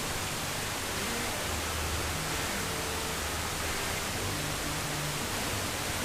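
Steady radio static hiss from a receiver on a weak or empty signal, with faint snatches of low tones buried under it.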